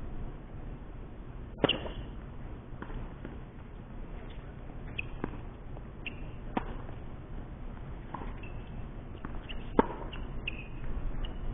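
Tennis rally on a hard court: sharp racket-on-ball strikes and ball bounces every second or so, the loudest about a second and a half in and again near the end, over a steady low rumble.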